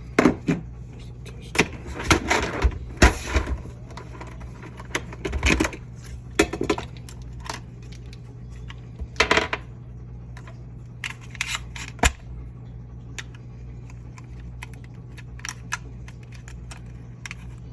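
Batteries being handled and fitted to a battery tester: scattered clicks and light clinks of the cells knocking together and snapping into place, busiest in the first ten seconds, over a steady low hum.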